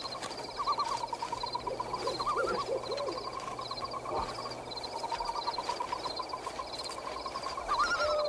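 Night woodland sound effects: a steady, fast-pulsing trilling chorus of frogs, with low wavering hoots about two to three seconds in and a falling hoot at the end.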